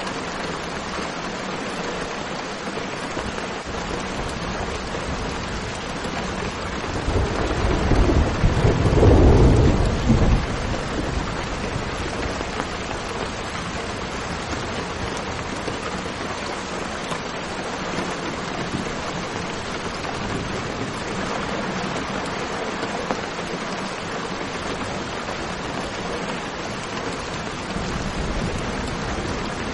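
Steady rain hissing, with one roll of thunder rumbling from about seven to ten seconds in.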